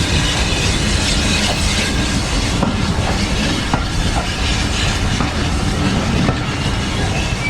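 Heritage railway train running along the track, a steady noise of rolling stock with wheels clacking over the rail joints.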